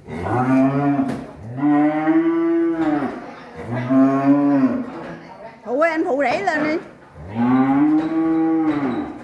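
Cattle mooing: four long, low moos, each about a second and a half, with a shorter wavering higher-pitched call between the third and fourth.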